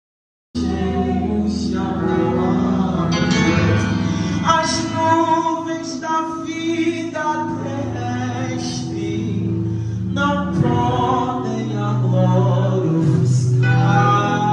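Gospel worship song: voices singing over electronic keyboard accompaniment, starting abruptly about half a second in.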